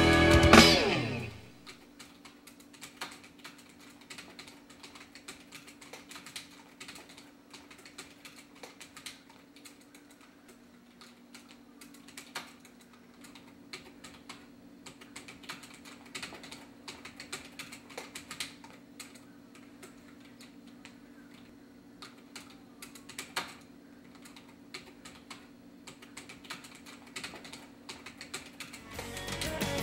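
Typing on a computer keyboard: quiet, irregular key clicks over a steady low hum.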